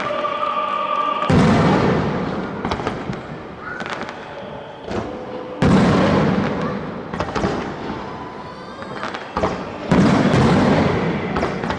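Aerial fireworks shells bursting: three big booms about four seconds apart, each fading away with crackling in between. Show music plays for the first second or so.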